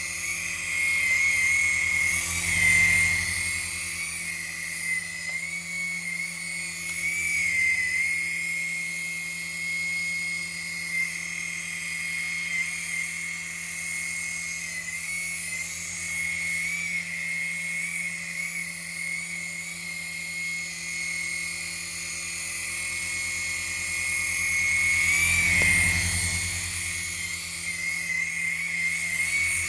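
Small coaxial RC toy helicopter in flight: its electric motors whine steadily at a high pitch that wobbles slightly with the throttle, over the low flutter of the rotor blades. It swells louder a couple of seconds in and again near the end.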